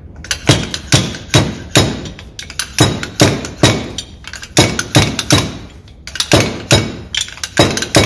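Fork seal driver being slammed down the fork tube of a 1991 Honda GL1500 front fork, sharp metal-on-metal knocks at about two to three a second to drive the seal into the fork slider, with a short break about six seconds in.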